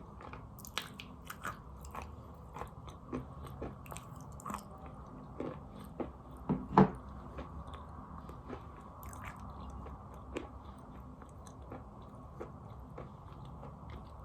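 Edible chalk being bitten and chewed: a run of irregular, crisp crunches, the loudest a pair of crunches about seven seconds in.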